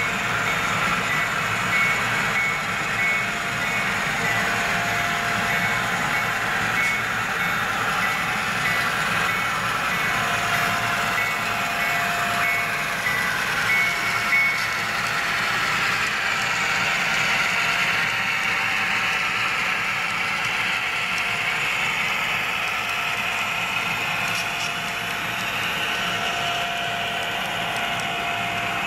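HO-scale model diesel locomotives running steadily with a freight train, giving a continuous train sound with a few faint steady tones over it.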